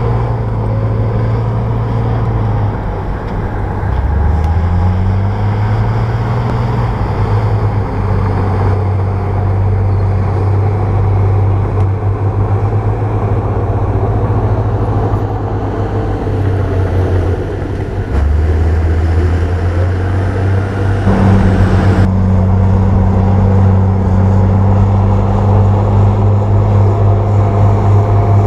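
Bulldozer diesel engine running under load, its pitch dipping and climbing back twice as the revs drop and recover.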